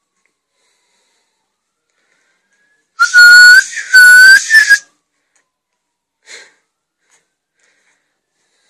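Someone whistling close to the microphone: two loud high notes of about half a second each, each lifting slightly at its end, then a short third note.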